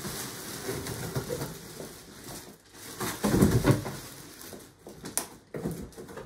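Plastic packaging wrap rustling and a cardboard box scraping as a wrapped stroller chassis is pulled out of its box, with a heavier bump about three seconds in and a sharp click a couple of seconds later.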